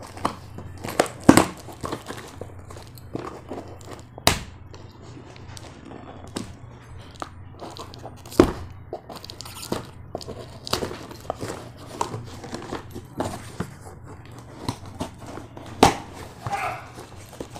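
Cardboard shipping box being torn open by hand, with irregular crackling, rips and sharp snaps as the tear strip and flaps are pulled back. A few louder snaps come about a second, four seconds, eight seconds and sixteen seconds in. A faint low hum runs underneath.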